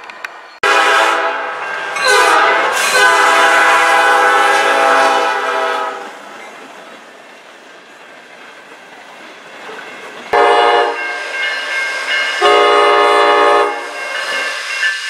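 Diesel locomotive air horns sounding a chord: one long blast of about five seconds starting just under a second in, then after a quieter stretch of passing railcars, more horn blasts from about ten seconds in.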